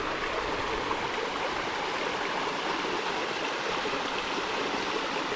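Creek water rushing and splashing over rock at a waterfall, a steady even rush.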